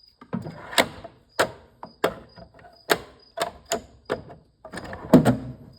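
Irregular sharp clicks and knocks of metal tool parts being handled and fitted together: a 3/8 in torque wrench and ratchet head mechanism being reassembled, about a dozen strikes with the loudest near the end.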